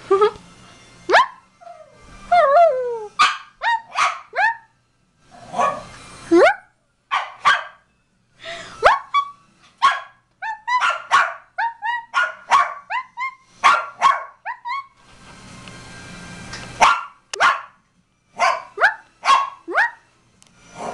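Small dog barking over and over in short, sharp barks that bend in pitch. About two seconds in there is a wavering, whining call, like the dog is 'talking'.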